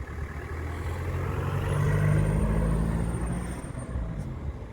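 A motor vehicle driving past, its engine hum growing louder to a peak about two seconds in and then fading away.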